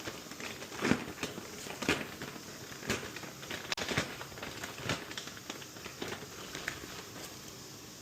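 Crinkling and rustling of plastic mushroom grow bags as grain spawn is handled into bulk sawdust, with sharp clicks and knocks about once a second that thin out toward the end.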